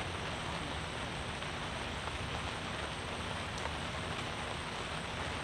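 Steady rain falling on a canopy tent, an even hiss with no break.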